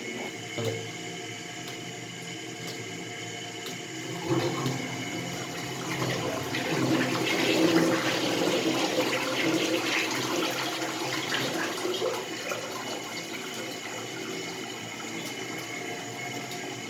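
Toilet cistern flushing. Water rushes into the bowl about four seconds in, is loudest a few seconds later, then eases off to a steady hiss as the tank refills.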